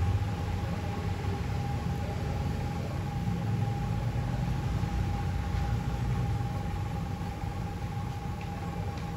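Steady low background rumble with a thin, steady hum tone above it; no distinct handling sounds stand out.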